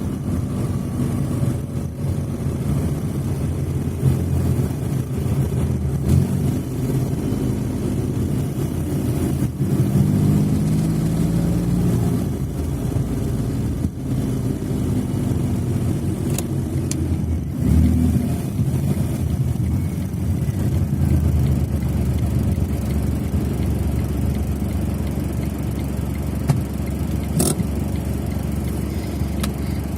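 Smart fortwo 451's engine running under load, its pitch rising twice around the middle as it revs up, then running steadier. A couple of brief clicks come through late on.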